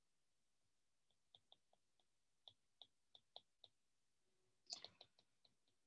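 Near silence with a dozen or so faint, irregular clicks of a stylus tip tapping on an iPad's glass screen during handwriting, bunched closer together near the end.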